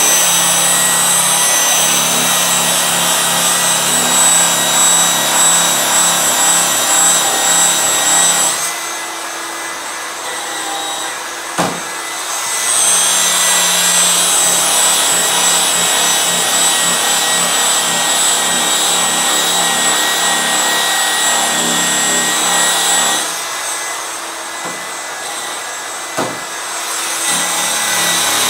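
Electric polisher with a white flannel buffing wheel running at about 2200 RPM, buffing an aluminum snowmobile tunnel with finishing compound: a steady motor whine with the wheel rubbing on the metal. The sound drops twice, about 9 and 23 seconds in, for a few seconds each, with a click in each lull, then picks up again.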